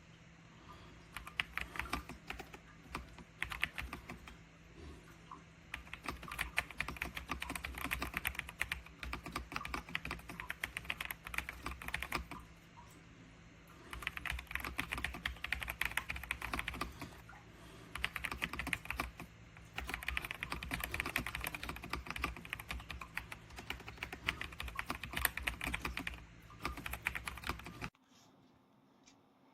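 Typing on an RK Royal Kludge S98 mechanical keyboard: rapid key clacks in runs of several seconds with short pauses between, stopping near the end. A steady low hum sits underneath.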